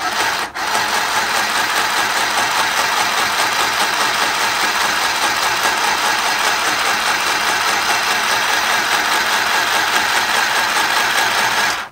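Battery-powered mini sewing machine running steadily at one speed as it stitches through two layers of 1000-denier Cordura, with a brief dip about half a second in. It stops abruptly just before the end.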